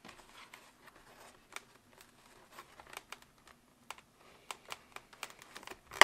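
Light, irregular clicks and soft rustling of plastic and fabric as hands press a motorcycle helmet's liner into place, with a louder snap near the end as it clicks in.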